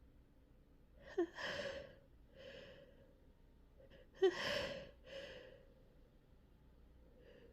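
A woman's pre-sneeze gasps: two sharp catching inhalations about three seconds apart, each followed by a softer breath, as a tickle in her nose builds toward a sneeze. A faint third breath begins near the end.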